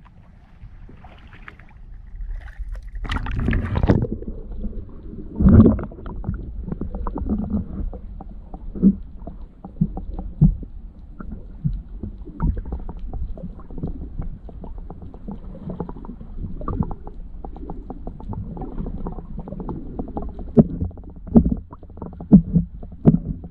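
Muffled underwater sound from a camera submerged beside the boat: water sloshing and gurgling, with irregular knocks and clicks. It comes after a splash about three seconds in as the camera goes under.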